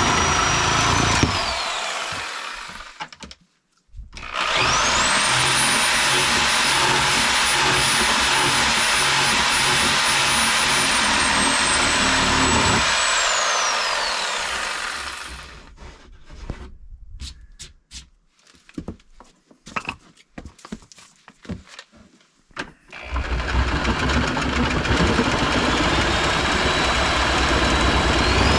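Angle grinder cutting through the steel skin of a foam-filled door. Its high whine winds down, then it spins up with a rising whine, runs steady, drops in pitch as it bites into the cut, and winds down. Scattered clicks and knocks of handling follow before the grinder is spun up again near the end.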